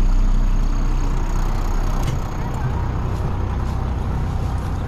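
Bus engine idling with a steady low rumble that drops in level about two seconds in.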